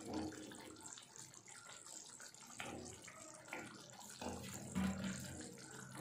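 Thick gravy simmering faintly in a pan, with a few soft plops as cubes of paneer are dropped into it by hand.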